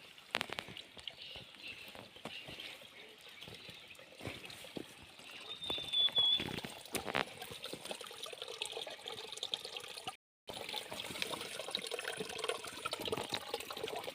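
Mountain stream water flowing and trickling, with scattered small clicks and a brief high chirp in the first part. About ten seconds in the sound cuts out for a moment, and the water then comes back as a steadier, fuller flow.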